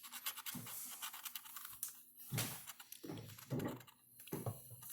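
Scratching the latex coating off a lottery scratch-off ticket in short, irregular strokes.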